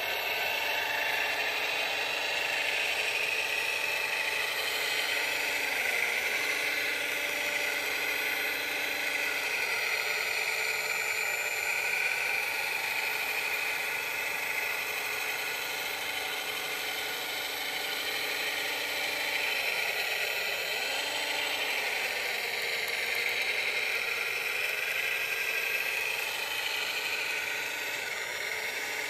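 Radio-controlled scale wheel loader whirring steadily as it drives, the sound of its small motors, gearing and hydraulics, with a low hum that dips briefly a few times.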